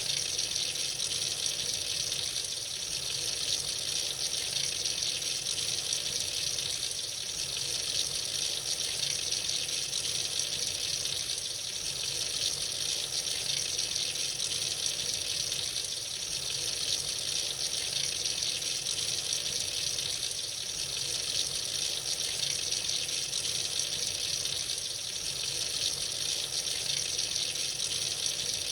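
Tap water running freely into a sink in a steady, even gush.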